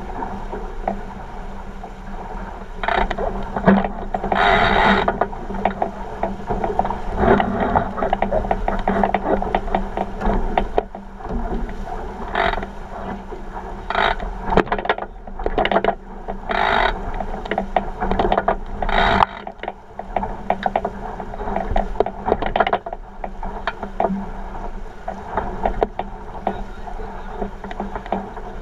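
A 49er skiff sailing fast: water rushing past the hull with a dense, steady rattling, and louder bursts of spray every few seconds.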